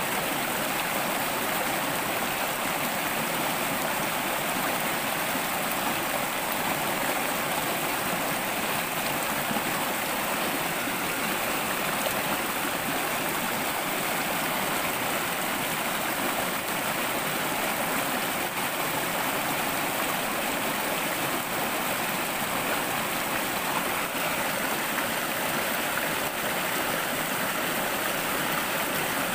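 Small rocky stream rushing steadily over boulders, an even, unbroken rush of running water.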